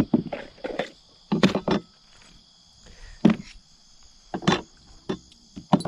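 Cordless drill/drivers, a plastic tub of screws and other hand tools being set down one after another on a weathered wooden board, a string of knocks and clunks. A steady high insect trill runs underneath.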